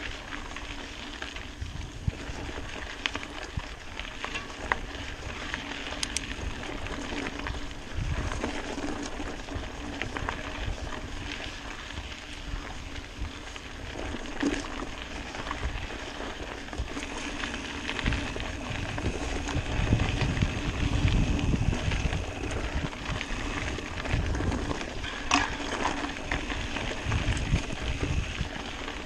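Mountain bike rolling fast over a dirt singletrack: a steady crackle of tyres on gravel and roots with scattered sharp rattles from the bike, and wind buffeting the microphone in low rumbling gusts, heaviest about two-thirds of the way through.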